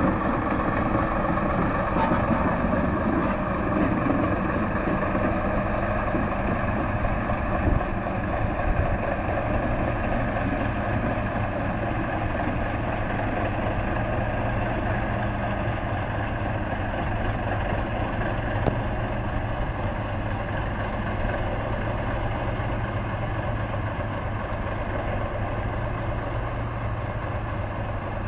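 Diesel locomotive engine running steadily at low revs as the train moves slowly away.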